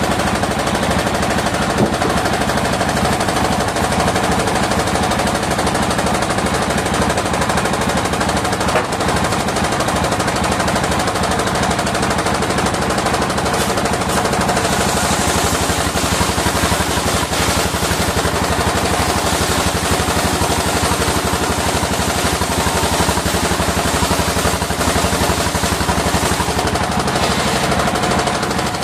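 Circular disc sawmill and its engine running steadily, with a rapid, even engine beat under the saw, sawing waru wood.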